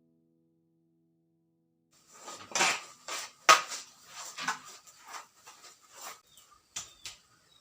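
Kitchenware being handled: dishes and utensils clattering and clinking in an irregular string of knocks, starting about two seconds in, after near silence. The sharpest clink comes near the middle.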